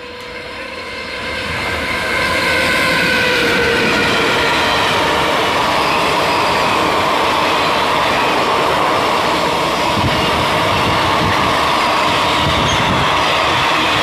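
Indian Railways passenger train hauled by a WAG-7 electric locomotive passing through a station at speed. The sound grows louder over the first two seconds or so as the locomotive arrives, then holds as a steady loud rush and clatter of the coaches going by.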